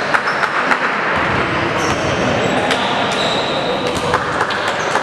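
Basketball bouncing on a hardwood court, with scattered thuds and a few brief high sneaker squeaks, over the steady noise of a sports hall.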